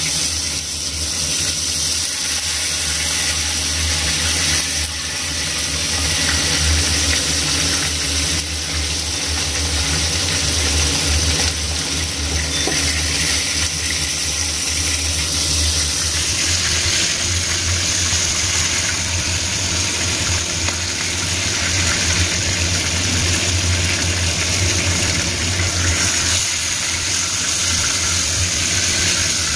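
Steak sizzling in oil in a small frying pan, over a steady low mechanical hum.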